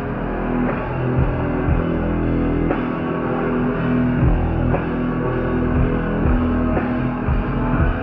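Rock band playing live: electric guitars and bass held over a steady drum-kit beat.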